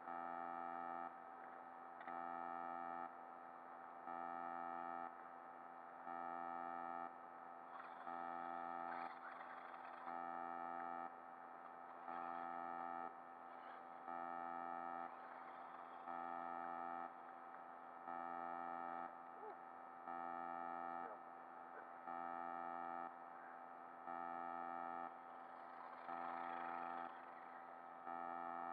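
A steady electronic tone of several notes together, pulsing on and off about once a second in an even rhythm, over a faint noisy background. Brief, slightly noisier patches come about eight seconds in and near the end.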